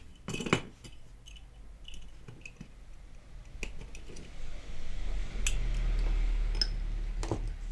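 Screwdriver and pliers working against a metal diecast model truck, prying its parts apart: scattered small clicks and scrapes of metal on metal, with a low rumble of pressure and handling in the second half.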